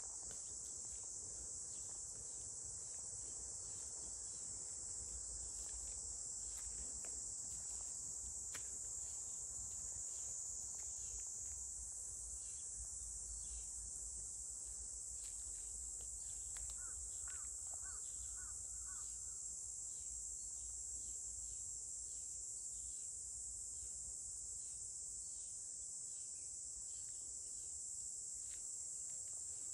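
Steady, high-pitched insect chorus of summer crickets or cicadas, with a short run of faint chirps about 17 seconds in.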